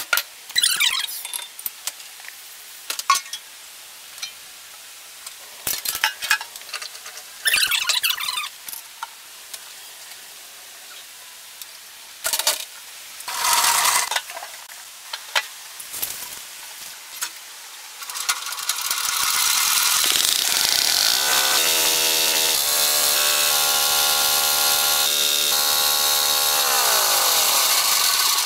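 Scattered hand-tool knocks, clicks and scraping on engine parts for the first two-thirds. From about 18 s, a horizontal single-cylinder diesel engine runs steadily, its pitch stepping up a few seconds later and falling away near the end.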